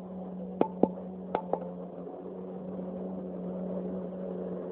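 Jet ski engine running with a steady drone across the water, slowly growing louder toward the end as the craft turns and heads closer. Four sharp clicks sound in the first second and a half.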